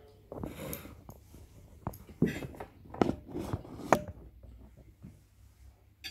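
Close handling noise: rustling with three sharp knocks or clicks about a second apart in the middle.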